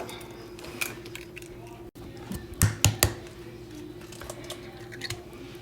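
Eggs being cracked: a few sharp taps of eggshell against a bowl, three in quick succession about two and a half seconds in, over a steady low hum.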